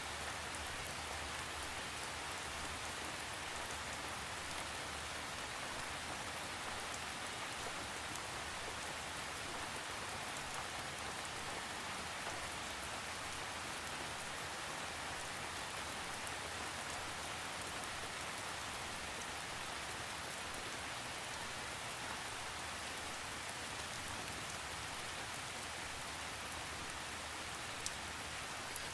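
Steady rain falling on a surface, an even hiss with scattered drop ticks and no thunder.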